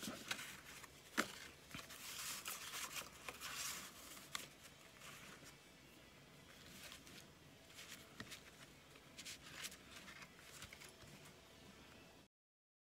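Paper and card tags being handled: faint rustling and sliding with a few soft ticks, busiest in the first few seconds, then fainter, until the sound cuts out abruptly near the end.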